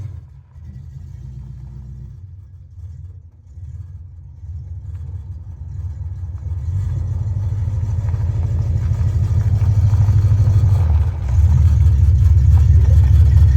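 Mopar 340 small-block V8 running after its tune-up, with a low pulsing exhaust note that grows steadily louder, dips for a moment about eleven seconds in, then comes back louder still.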